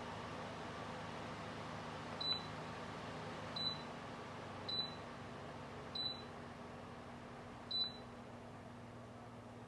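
Dreo tower fan running with a steady rush of air while its controls give five short high beeps, one for each button press as settings are changed. The airflow eases a little over the stretch.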